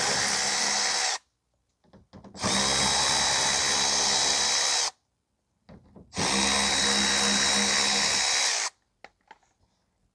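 Power drill running three times in steady runs of about two and a half seconds each, backing out the splash shield screws. A few light clicks follow near the end.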